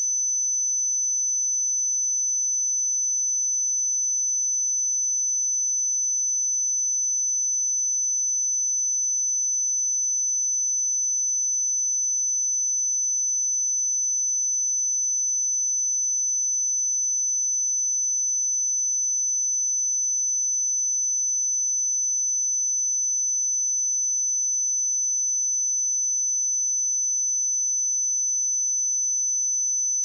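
Electronically generated 6044 Hz sine-wave test tone: a single pure, steady high-pitched whistle held at constant pitch and level.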